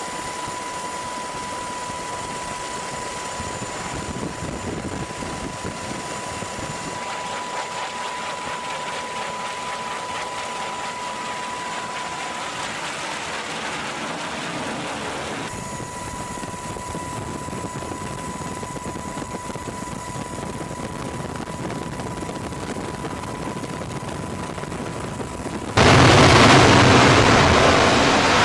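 Fighter jet engine noise, a steady rush with a high thin whine, as F-35C jets fly in low toward the carrier. It changes abruptly a couple of times. About 26 s in it jumps suddenly to a much louder jet roar at full power as an F-35C is launched off the carrier's catapult.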